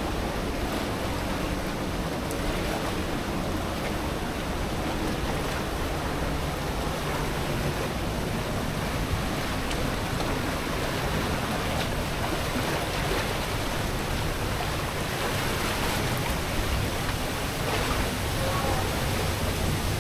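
Rushing river water: a steady, even noise that grows a little louder near the end.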